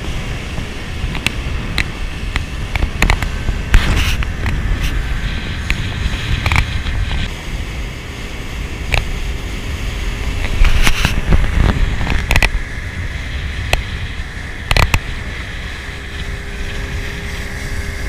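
Small motorboat under way at speed: a steady rush of wind and water over a low rumble, broken by irregular sharp knocks as the hull meets the chop.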